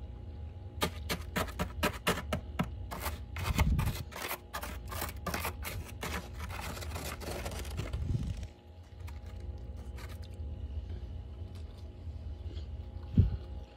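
Fingernails raking and scraping the thick frost build-up inside a freezer: a quick run of crisp, crunchy scratches for the first several seconds, then they stop. A single low thud comes near the end, over a steady low hum.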